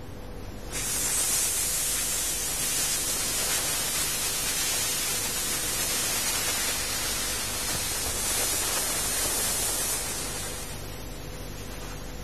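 A long, controlled out-breath blown out through the lips with no tone: a steady rush of air that swells in about a second in and dies away near the end. It is the breath-control exhale of a trumpet breathing exercise, with the belly held firm.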